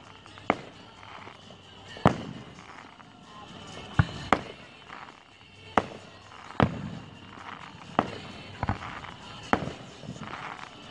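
Distant aerial fireworks booming: about ten sharp reports at irregular intervals of roughly one to two seconds.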